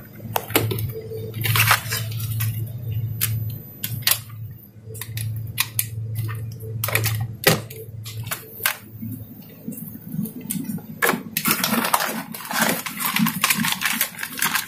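Scattered clicks and knocks of a plug-in power adapter and cables being handled and pushed into a wall socket, over a low steady hum. In the last few seconds, dense crinkling of a plastic bag around a fibre-optic patch cord being handled.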